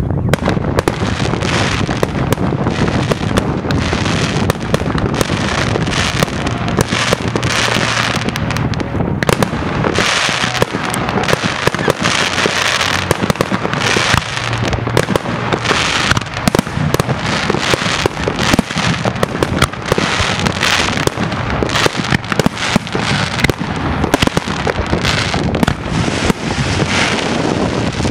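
Fireworks display: aerial shells and rockets bursting in a rapid, unbroken barrage of bangs and crackling, with several spells of denser crackle and hiss.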